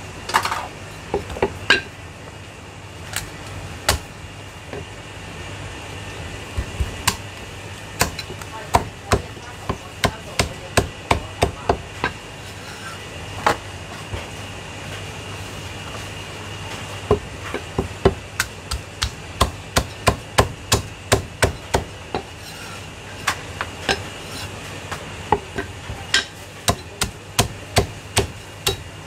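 Chinese cleaver chopping cooked goose on a thick wooden chopping block. Sharp thwacks come in quick runs of about two to three a second, with pauses between the runs. A steady low hum runs underneath.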